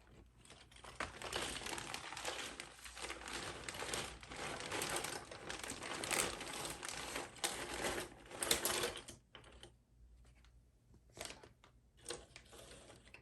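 Cardboard jigsaw puzzle pieces being handled and sorted: a dense rustling clatter of small clicks that thins to scattered clicks about nine seconds in.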